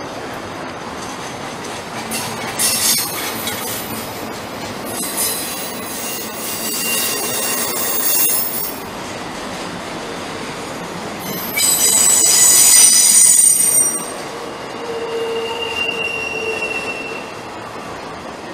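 Union Pacific intermodal freight train rolling past, its cars giving a steady rumble. The wheels squeal high-pitched in two long spells, the louder in the second half, followed by a shorter, steadier whine.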